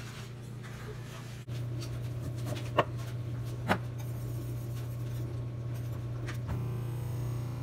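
Scraping and rubbing of lemon and lime pieces being worked on a wooden cutting board, with two sharp knocks about three and four seconds in, over a steady low hum.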